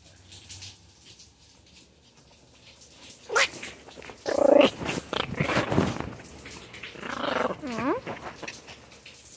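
Small dog vocalizing in a series of whiny yowls starting about three seconds in. The loudest comes about a second later, and the last one slides down in pitch.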